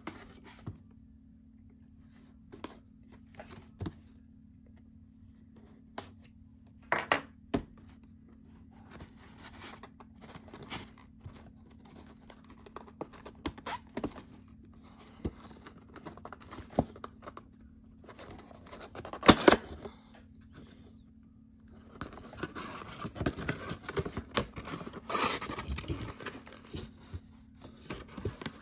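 Cardboard box and plastic packaging of a prize figure being handled and opened: scattered clicks, scrapes and tearing, with one loud burst about two-thirds through. Dense crinkling of plastic wrap follows for several seconds near the end, over a steady low hum.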